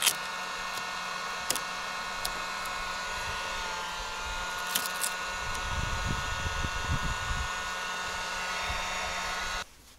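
Heat gun running steadily, its fan and motor giving an even whir with a high whine, switched off abruptly near the end.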